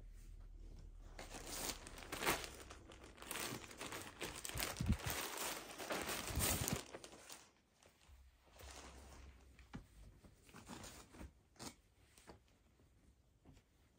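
Thin plastic packaging being torn open and crinkled by hand, dense and loudest for the first half. It is followed by sparser, quieter rustles and small clicks as a knit top is pulled out and laid down.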